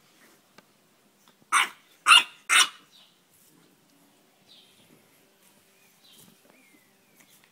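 A dog barks three times in quick succession, about half a second apart, starting about a second and a half in. Afterwards only a few faint, short, high-pitched squeaks.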